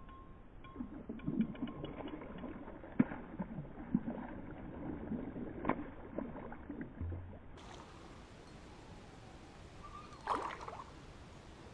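Irregular knocks and clatter of gear against a canoe's hull, with a sharp knock about three seconds in, then quieter water-and-boat noise.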